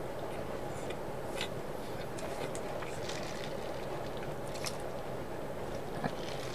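Faint chewing and small mouth clicks from a person eating, a few scattered ticks over a steady background hiss.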